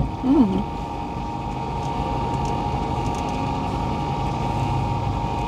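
Steady hum of a car's engine and road noise heard inside the cabin while driving.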